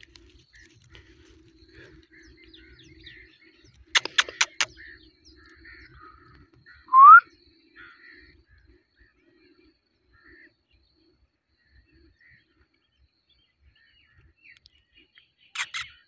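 Indian ringneck parrot giving a short, loud, rising whistle about seven seconds in, with faint soft chirps around it. A quick run of four sharp clicks comes a few seconds before the whistle, and a brief noisy burst comes near the end.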